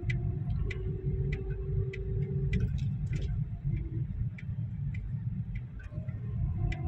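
A car's turn-signal indicator ticking evenly, about three ticks every two seconds, over the low rumble of the engine and road inside the car's cabin.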